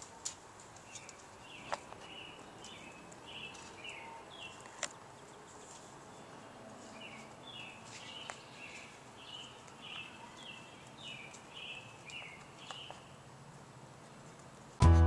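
A bird chirping in quick runs of short repeated calls, over faint outdoor background noise, with a few sharp clicks. Harmonica music starts at the very end.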